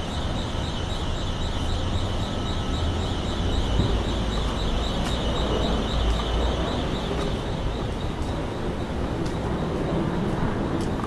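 Steady wind and street-traffic noise picked up by a body camera on a cyclist riding a bike-share bike through city streets, with a heavy low rumble. A fast, high, regular ticking fades out about three seconds in.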